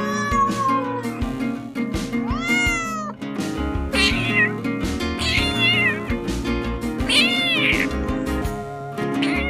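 Domestic cat meowing repeatedly over background music: about five long, high meows a second or two apart, some rising in pitch and some arching up then down.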